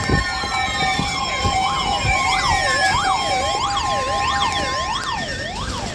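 Sirens wailing, several overlapping and sweeping up and down in pitch about once a second, over a steady two-tone alert tone that stops about five seconds in. Long falling pitch glides run through the first three seconds.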